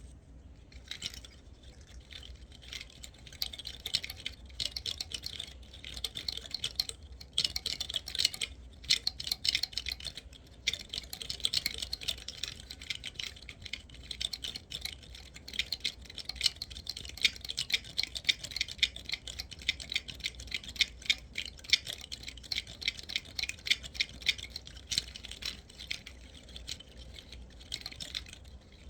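Rapid, dense dry clicking and rattling from a pinecone being played, its scales ticking in quick runs that sound like a slot machine.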